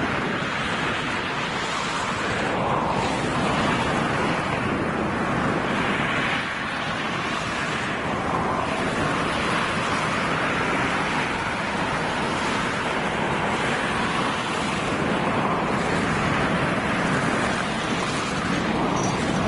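Freight train of gondola and hopper wagons rolling across a steel truss railway bridge: a steady, even rushing rumble of wheels on the rails with no breaks.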